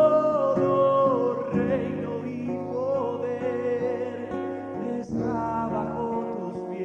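Christian worship music: long held melody notes that glide between pitches over a steady instrumental accompaniment.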